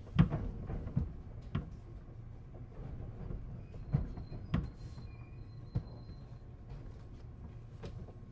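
Scattered knocks and clunks inside a JR East 211-series commuter train car, about seven in all, the loudest near the start, over the car's steady low hum.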